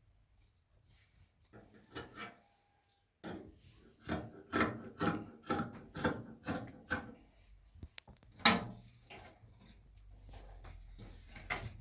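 Rhythmic rubbing or scraping strokes, about two a second, followed by a single sharp knock.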